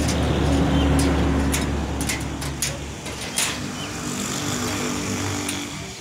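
Heavy truck's diesel engine idling steadily, loudest in the first two seconds, with several sharp knocks and clicks scattered through.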